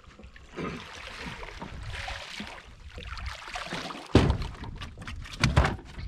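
A hooked catfish thrashing at the surface beside the boat: two loud splashes, about four seconds in and again about a second and a half later, over steady water and wind noise.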